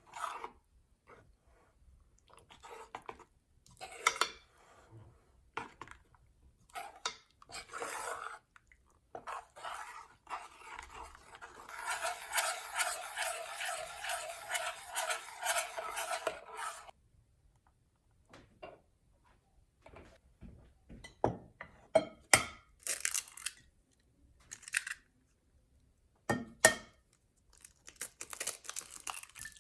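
Kitchen utensils and bowls clinking, knocking and scraping during food preparation, with a steady stretch of rapid scraping in the middle, like a utensil worked briskly against a bowl.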